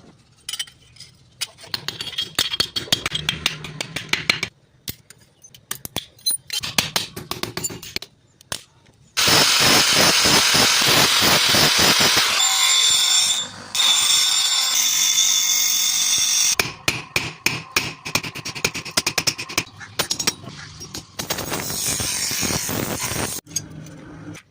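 Metalworking power tools working an old steel saw blade: stretches of rapid tapping and scraping, then several seconds of continuous loud grinding with a steady high whine in its later part, then more tapping and grinding.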